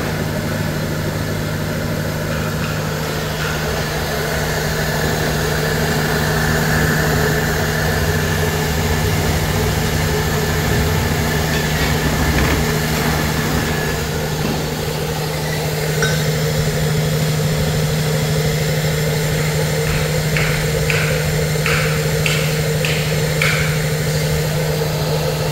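Raj 14-inch flour mill, driven by a 3 hp electric motor, running steadily with a constant low hum while grinding pearl millet. Near the end come about six short ticks, roughly half a second apart.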